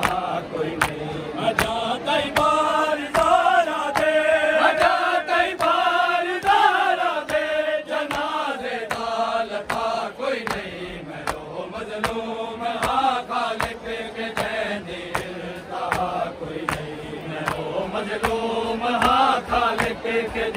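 Men reciting a noha, a Shia lament, together in a chanted melody with wavering pitch. It is punctuated by rhythmic matam, open hands slapping chests, at roughly one and a half beats a second.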